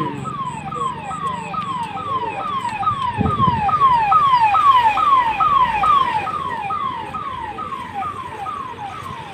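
Emergency vehicle siren sounding a rapid repeated falling tone, about two sweeps a second, louder in the middle and fading toward the end.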